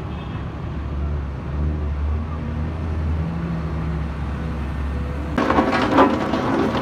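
Hydraulic excavator's diesel engine running with a steady low hum while it works a sand pile. About five seconds in, the sound cuts to a louder rattling clatter of road-building machinery.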